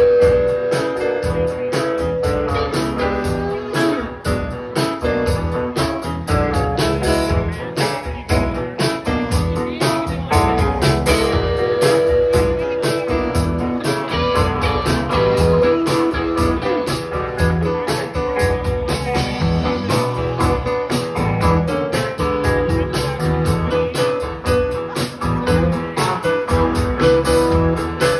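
Live rock band playing with two electric guitars, electric bass, drums and keyboards, with long held notes sustained over the band.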